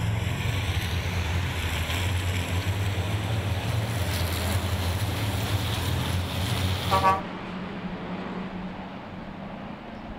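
A pack of racing trucks' big turbodiesel engines running hard together, a loud steady drone. About seven seconds in comes a short horn-like toot, and the sound then drops to a quieter, more distant drone of the trucks.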